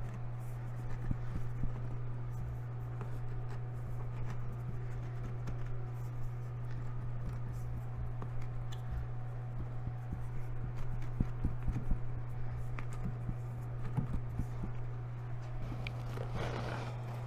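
Concrete tile being pressed and shifted by hand into wet thinset on a wall: scattered light knocks and scuffs, busier about two-thirds of the way through, over a steady low hum.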